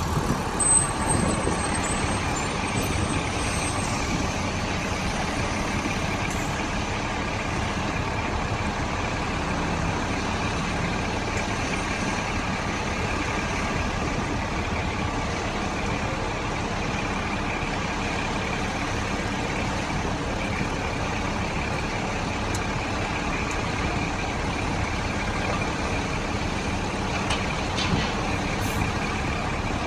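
Caterpillar tracked excavator's diesel engine running steadily as it works its hydraulic arm and bucket, with a brief clank near the end as the bucket lifts the bridge's steel railing.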